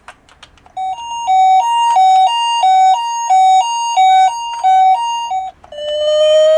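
Toy ambulance's electronic sound chip, set off with a few plastic clicks: a two-tone Japanese 'pee-po' ambulance siren switching between a high and a low note about three times a second. Near the end it changes to a single slowly rising wail.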